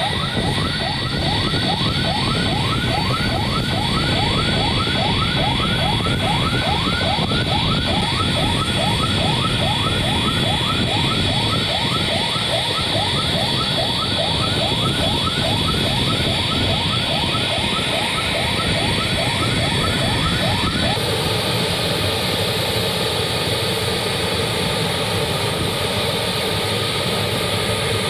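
Turbofan engines of a four-engine BAe 146-family jetliner running as it taxis, a steady jet whine with a high, even tone. Over it, a fast repeating chirp, about three a second, runs until it cuts off abruptly about 21 seconds in.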